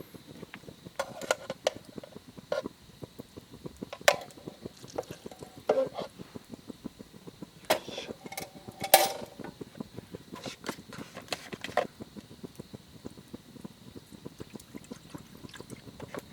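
Metal camp cookware being handled: a dozen or so separate clinks and knocks, some ringing briefly, the loudest about nine seconds in. Underneath runs a steady fine crackle from the wood fire.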